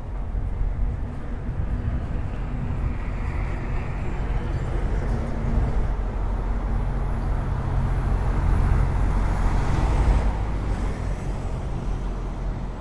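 Street traffic: a vehicle engine hums steadily close by, and road noise swells as a vehicle passes, loudest about ten seconds in, then fades.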